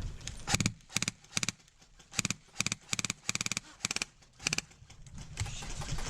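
Airsoft rifle firing about nine quick bursts of BBs over roughly four seconds, each burst a rapid run of sharp clacks, until the magazine runs dry.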